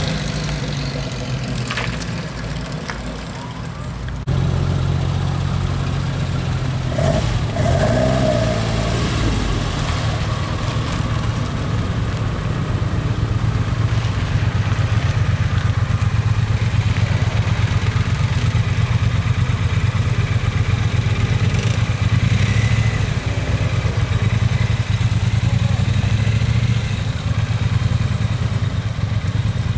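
A car engine running steadily close by with a low, even rumble. It gets louder about four seconds in and then holds steady.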